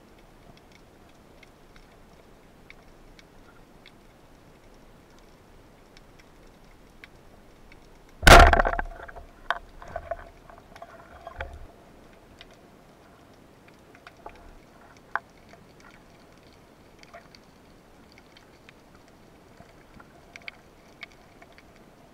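Band-powered speargun fired underwater: one sharp crack about eight seconds in, followed by a few seconds of rattling from the shaft and line as the fish is hit. Faint scattered clicks throughout.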